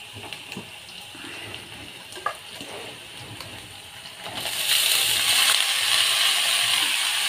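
Oil sizzling quietly in a karahi with onions and spices, with a few light clicks. About four and a half seconds in, chopped leafy greens are tipped into the hot oil and the sizzle jumps to a loud, steady hiss.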